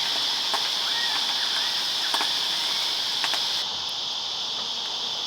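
Steady high-pitched chorus of summer insects, with a few faint clicks. The chorus drops a little in level about three and a half seconds in.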